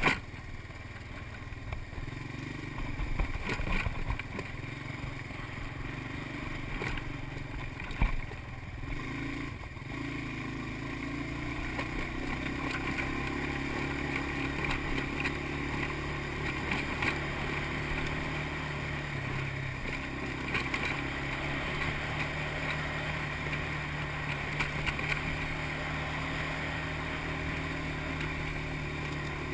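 ATV engine running steadily while riding, its pitch rising and falling a little with the throttle. A few knocks and clatters come in the first several seconds, the sharpest about eight seconds in.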